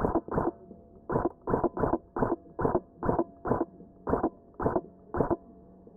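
Airsoft rifle firing about a dozen single shots in quick, uneven succession, stopping about a second before the end. The shots sound muffled and dull through the head camera's poor microphone.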